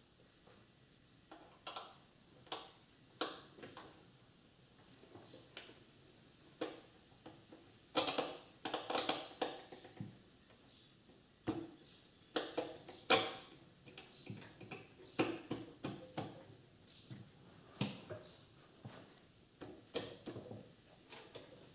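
Scattered knocks and clicks of metal parts handled by hand as a Yamaha YL1 motorcycle engine is shifted and lined up in its frame, with a cluster of louder knocks about eight seconds in and again around twelve to thirteen seconds.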